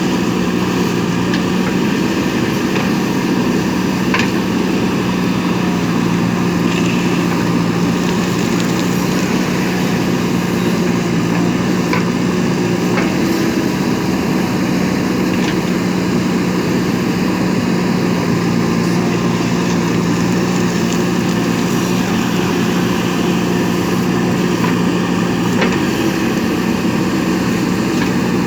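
JCB 3DX backhoe loader's diesel engine running at a steady speed, with a few faint knocks and clanks now and then.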